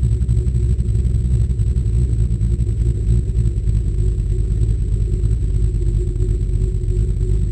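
Engine and road rumble of a 1978 Dodge Challenger race car, heard from inside its cabin: a steady, loud low drone with no revving, as the car is driven along at an even pace.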